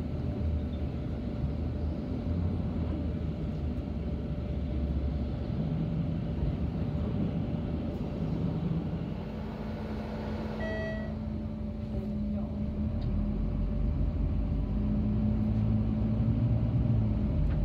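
Inside a Volvo 8500 articulated city bus at road speed: a steady low engine drone with tyre and road noise. A brief high electronic tone sounds about two-thirds of the way in, and the engine drone grows louder toward the end.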